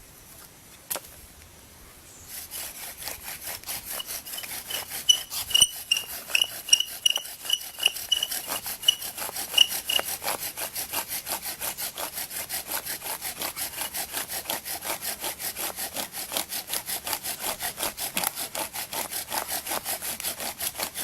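Fast, rhythmic back-and-forth strokes of wood rubbing or sawing against wood, starting about two seconds in and keeping an even pace. High squeaks ride on the strokes for several seconds near the start.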